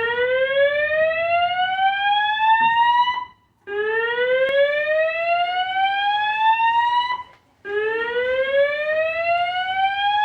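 Fire alarm sounding a slow-whoop tone: a rising electronic sweep about three and a half seconds long, repeated three times with a short break between sweeps.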